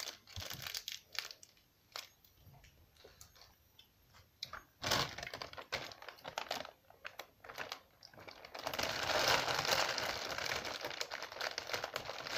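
Plastic Haribo sweet packets crinkling and rustling as they are handled, in scattered clicks and crackles with a louder burst about five seconds in. A longer stretch of continuous crinkling comes in the last third.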